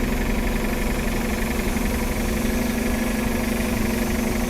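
A motor running steadily at an unchanging speed, a constant droning hum with no rise or fall.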